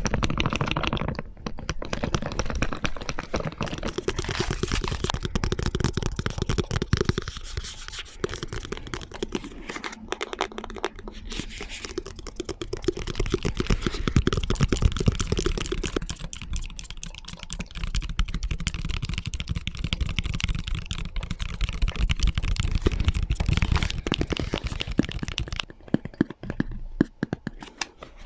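Layered ASMR tapping: rapid taps and scratches, likely fingernails on hard objects, many overlapping. The sound switches several times to a different set of taps.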